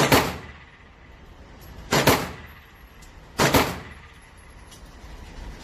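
Three 9mm pistol shots fired one at a time, the first at the start, the next about two seconds later and the last about a second and a half after that. Each shot has a short echoing tail from the indoor range.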